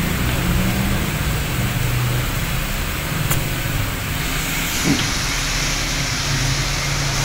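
A steady low machine hum with a hiss over it, and a faint tick about three seconds in.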